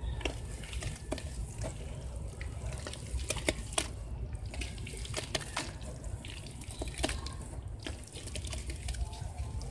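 Hands squeezing and kneading wet sand and mud in a tub of muddy water: squelching and sloshing with irregular sharp wet splats, over a steady low rumble.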